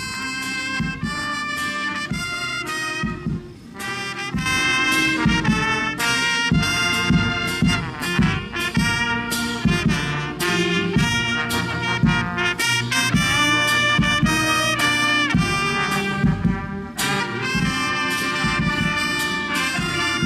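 Live brass band playing a tune, with a steady beat underneath.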